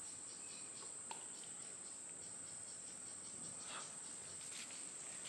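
Insects trilling in a steady, unbroken high-pitched chorus.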